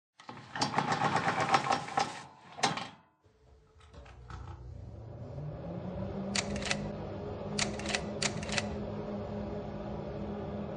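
A rapid mechanical clatter that stops after about two seconds, then a few clicks and a machine hum that rises in pitch and settles steady, with two short runs of sharp clicks over it.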